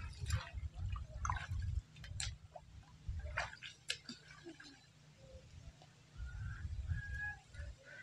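Pond water splashing and dripping as people wade waist-deep through water lilies and pull up the lily stalks, with several sharp splashes in the first four seconds, over a low on-and-off rumble.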